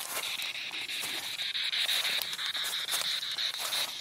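Spirit box sweeping through radio frequencies: a steady hiss of radio static chopped by rapid, regular clicks as it jumps from station to station.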